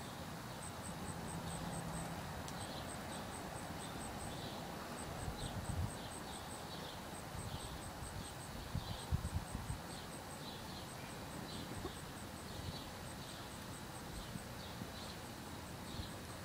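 Outdoor ambience: rapid high chirps repeating in short runs throughout, with a few low thumps about six and nine seconds in.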